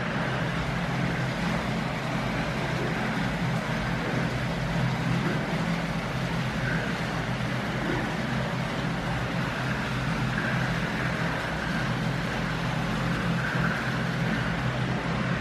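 Pool water splashing and churning as two Eurasian otters swim and tussle, over a steady low hum.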